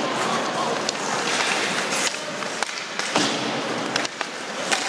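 Ice hockey skates swishing and scraping on the ice, with several sharp clacks of sticks and puck spread through it.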